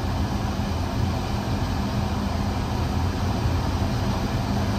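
Steady low hum and air noise of running HVAC machinery, with no distinct clicks or changes.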